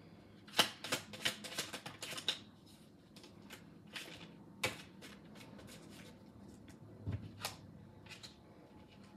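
A deck of tarot cards shuffled by hand: a quick run of card snaps and rustles in the first couple of seconds, then a few single snaps as cards are laid out on the table.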